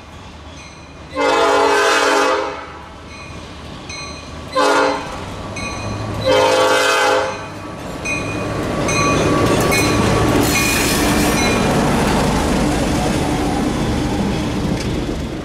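Baldwin diesel switcher locomotive's horn sounding a long, a short and a long blast, the end of a grade-crossing signal. Then the locomotive and its wheels rumble past, growing louder and easing off near the end.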